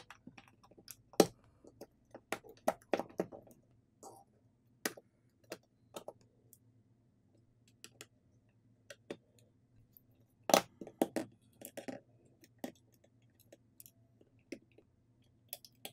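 Irregular clicks and taps of small plastic and metal smartphone parts being handled and pressed into a rugged phone's frame, with flex-cable connectors snapping into place. Two louder clicks stand out, about a second in and about ten and a half seconds in.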